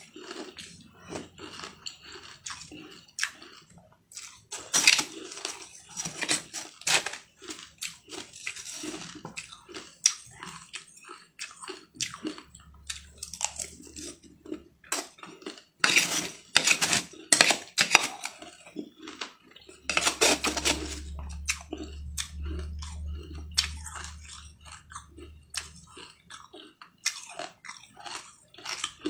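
A person chewing and crunching a mouthful of crunchy food close to the microphone, in several louder bouts. A low hum comes and goes partway through.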